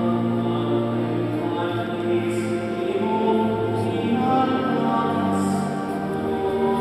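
Choir singing slow, held chords in a church.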